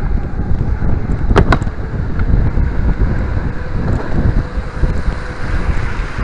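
Wind buffeting an action camera's microphone on a moving bicycle, a steady low rumble over the sound of riding on paving stones. A couple of short sharp clicks about a second and a half in.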